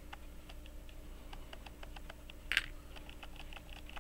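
Steady fast ticking of a timepiece, about five light beats a second in an uneven tick-tock rhythm. A sharper small metal click of steel tweezers on the watch movement comes about two and a half seconds in.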